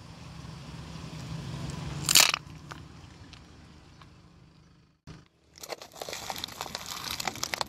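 Car tyre creeping onto a plastic makeup squeeze tube over a low rumble; the tube bursts with one loud pop about two seconds in. After a cut, plastic snack cups crackle and crunch under the tyre in a rapid run of clicks near the end.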